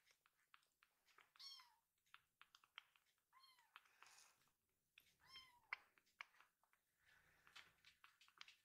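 A young kitten mewing three times, short high mews that dip in pitch at the end, faint, amid small wet clicks of suckling from a milk bottle's nipple.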